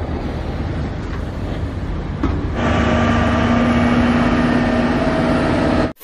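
Diesel engine of a Tatra eight-wheel tipper truck running as the truck drives, a low rumble. It grows louder about two and a half seconds in, into a steady engine drone.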